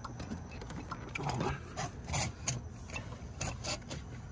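Metal parts scraping, rubbing and clicking as a Honda Foreman 500 cylinder is worked down by hand over the piston and cylinder studs: several sharp clicks over rubbing. The cylinder is not yet sliding down freely.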